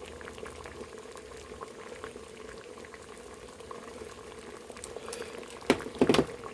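Water at a rolling boil in a metal can, a steady bubbling and popping, with a few sharp knocks near the end.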